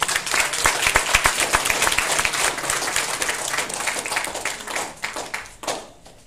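Audience applauding: a dense round of hand claps that thins out to a few last claps near the end.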